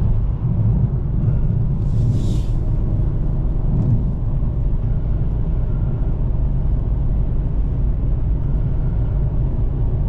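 Steady low road and engine rumble of a car at highway speed, heard from inside the cabin, with a short hiss about two seconds in.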